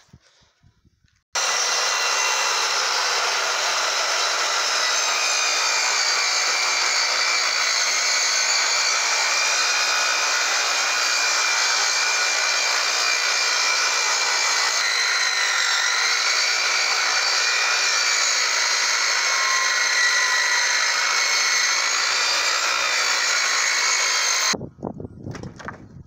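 Circular saw ripping lengthwise through a freshly milled bitternut hickory slab, running at a steady high whine under load. It starts abruptly about a second in and stops abruptly shortly before the end.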